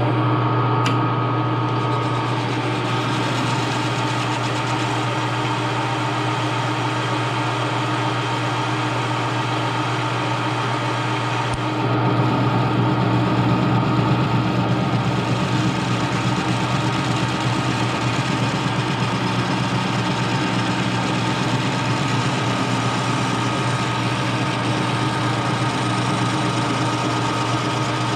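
Grizzly G0776 gunsmithing lathe running steadily, a constant motor-and-gear hum, while the cutting tool turns down the sleeve pressed into a cast iron pulley. The sound gets a little louder about twelve seconds in.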